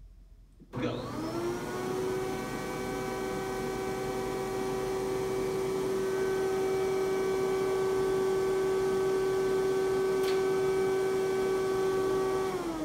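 Air track blower switched on about a second in, its motor whine rising quickly to a steady pitch and then running steadily. A single sharp click comes about ten seconds in, and near the end the blower is switched off and its whine begins to fall.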